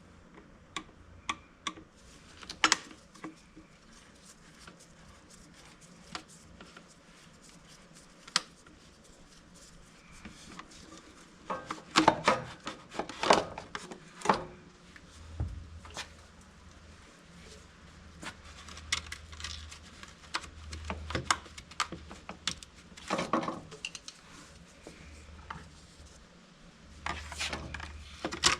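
Hands-on work at a mini excavator's air filter housing: scattered clicks, knocks and rubbing of parts being handled, with clusters of louder knocks about twelve seconds in, around twenty-three seconds, and near the end.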